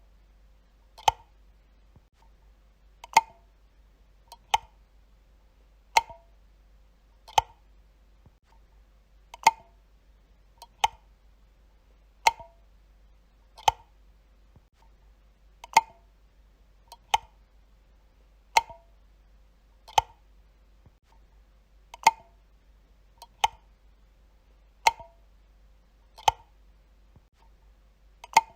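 Wall light switch clicked over and over, one sharp snap about every one and a half seconds, many with a fainter click just before.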